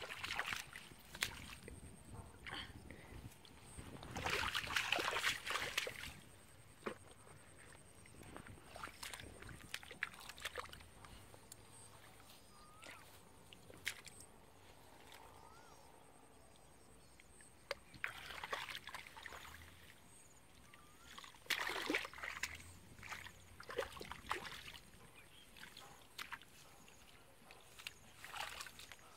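Hands and bare feet sloshing and squelching in shallow muddy water, in a few irregular bursts, the loudest about four to six seconds in, with quieter stretches between.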